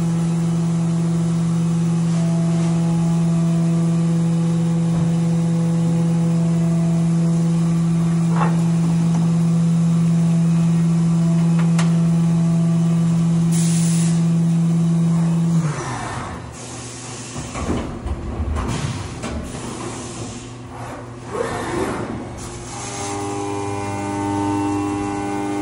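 Haas CNC vertical milling machine cutting metal under flood coolant, running with a steady machine tone. About two-thirds of the way through the tone drops away into a few seconds of uneven spraying and rushing sound, and near the end a new steady tone at a different pitch sets in as the next move starts.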